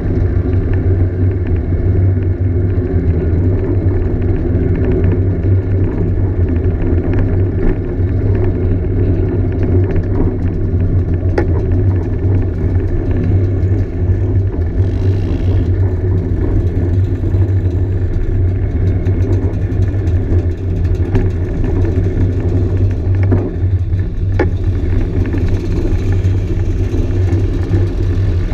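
Scooter engines running steadily at an even cruising speed on the move, a constant low drone with no revving or gear changes.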